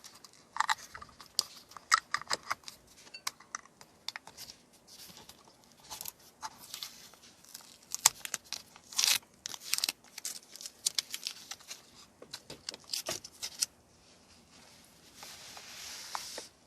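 Light, irregular clicks, taps and rustling of small parts being handled and fitted by hand, with a steadier rubbing hiss near the end.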